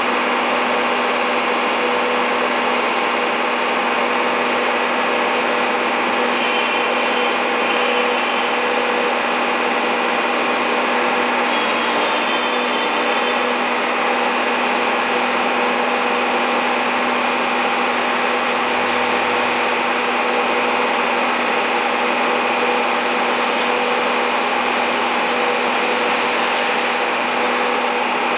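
Caterpillar E240B excavator's diesel engine running steadily at an even pitch, with a constant hum.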